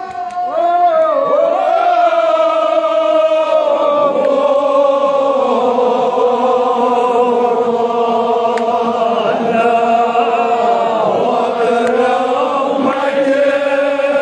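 A crowd of men chanting a Kashmiri noha, a mourning lament, in unison on long held notes. The chant grows louder about half a second in.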